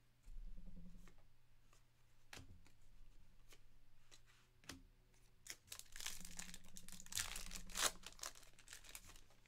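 Foil trading-card pack of 2023 Panini Certified Football being torn open and its wrapper crinkled, for about three seconds from a little past halfway. Before it, a few light clicks of cards being handled and set down.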